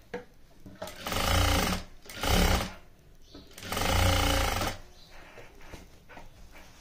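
Industrial sewing machine stitching lace trim onto fabric, running in three short bursts, the second one briefly, with quiet cloth handling between them.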